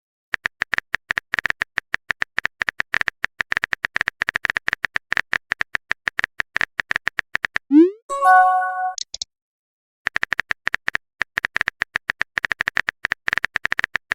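Rapid keyboard-typing click sound effect, as used in chat-message videos, running in two long runs of quick clicks. Between them, about eight seconds in, comes a short rising swoosh and a brief chime, a message-sent notification sound.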